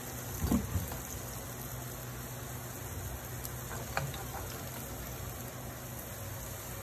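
Falafel deep-frying in a pan of hot oil, a steady sizzle, with a low knock about half a second in and a light click about four seconds in as a slotted spatula lifts fried falafel out.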